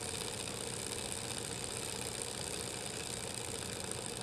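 Mini vertical Stirling engine running steadily: the even, fast mechanical whir of its spinning flywheel, crank and displacer.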